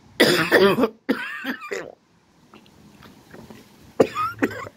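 Loud, close non-speech vocal sounds from a person, like coughing: two short bursts in the first two seconds and a third about four seconds in.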